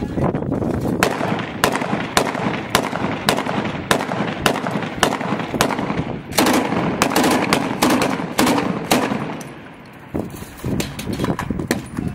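Close gunfire from Kalashnikov-type rifles and a belt-fed PK machine gun: loud single shots and short bursts at an irregular pace of about one or two a second, with a brief lull about four-fifths of the way through.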